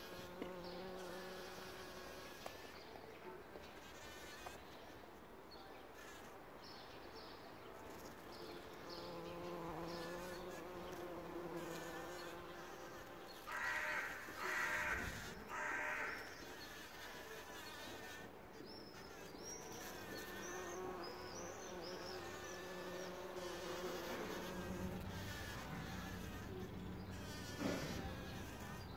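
Bumblebees buzzing as they forage in a poppy flower: a low wing hum that comes and goes and wavers as they move about, with three short louder buzzing bursts about halfway through.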